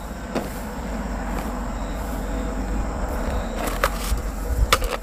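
Steady outdoor background noise with a low rumble, broken by a few short clicks or knocks; the clearest two come near the end.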